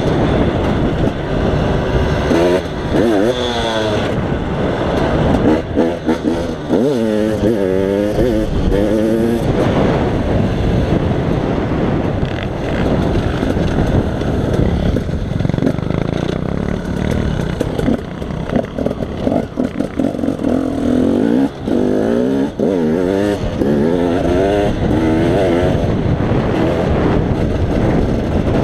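KTM 250 XC-W two-stroke dirt bike engine heard from onboard, running under load. It revs up through the gears in several surges, its pitch climbing and dropping again with each shift and throttle change.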